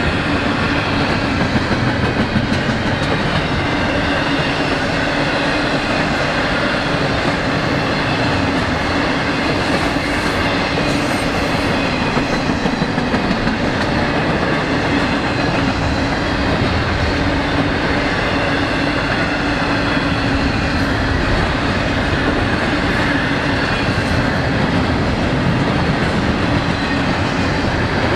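A freight train rolling past at a steady speed: continuous, even wheel-on-rail noise from the passing cars.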